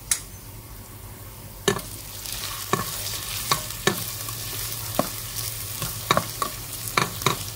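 Diced ginger frying in a little oil in a rice cooker's nonstick inner pot, a faint sizzle that grows louder from about two seconds in. A spatula stirs it, knocking and scraping against the pot at irregular intervals.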